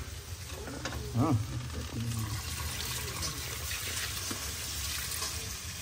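Cold water pouring from a steel pot of boiled chow mein noodles into a plastic colander and draining through its holes. The splashing becomes steady from about two seconds in, with a faint voice before that.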